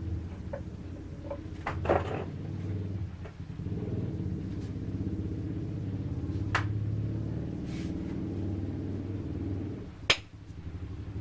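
A steady low mechanical hum with a few sharp clicks over it; the loudest click comes about ten seconds in.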